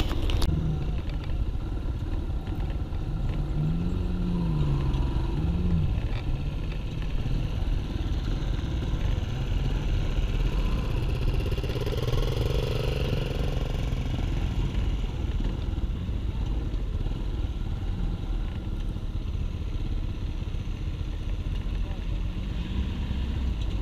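Dirt motorcycle engine running at low speed with wind noise on the microphone, revving up and back down twice a few seconds in. Around the middle another engine, a pickup truck's, swells and fades.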